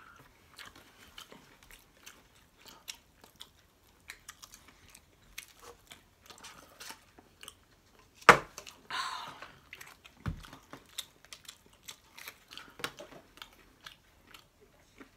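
Close-up chewing and biting of chicken nuggets: many small, irregular mouth and crunch sounds. A single sharp knock about 8 seconds in is the loudest sound, and a duller thud follows about two seconds later.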